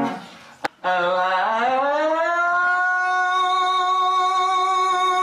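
A male tenor voice sings a vowel exercise. About a second in it slides up about an octave onto F sharp and holds the note steadily. The last of a strummed acoustic guitar chord fades out at the very start.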